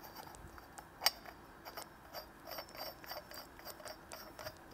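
Metal inch-and-a-quarter pipe nipple being screwed by hand into a brass foot valve: a sharp metallic click about a second in, then a run of small ticking clicks as the threads turn.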